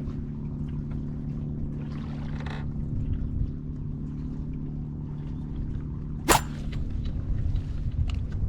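Steady low hum of a boat engine running, with a short rush of water about two seconds in and one sharp click a little past six seconds.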